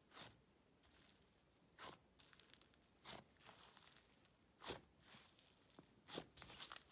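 Near silence, with a few faint, scattered crackles and clicks of slime being handled.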